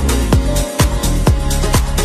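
Background music with a steady, deep kick-drum beat, about two beats a second.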